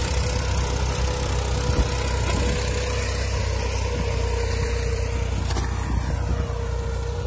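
Tractor diesel engine running steadily while pulling a two-disc hydraulic disc plough through dry soil, with a thin steady hum riding over the engine's low rumble.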